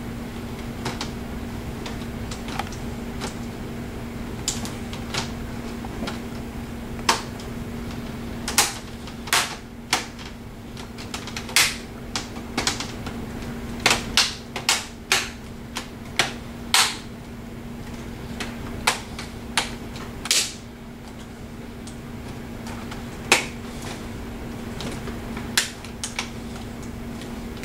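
Plastic screen bezel of a Dell Inspiron N5010 laptop being pressed back on by hand, its clips snapping into place in a string of sharp, irregular clicks, thickest in the middle, over a steady low hum.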